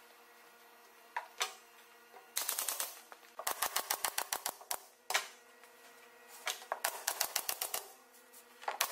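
Pneumatic nailer driving nails through a plywood top into the frame below. It fires in several quick runs of sharp snaps, many shots a second, with short pauses between the runs.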